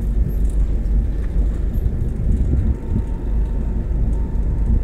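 Steady low rumble of a car heard from inside its cabin while it is being driven.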